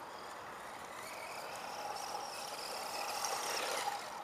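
ECX Circuit four-wheel-drive electric RC stadium truck driving over grass toward the listener. Its motor and gears whine, growing louder as it comes closer, and the pitch drops near the end as it slows.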